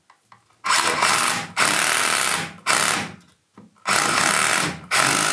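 Makita DHR171 18 V cordless SDS-plus hammer drill run with no load in five short trigger pulls of about a second each, its motor spinning up and stopping between pulls.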